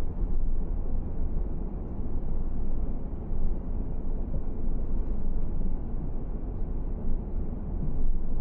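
Steady low rumble of a car being driven, its road and engine noise even and unbroken.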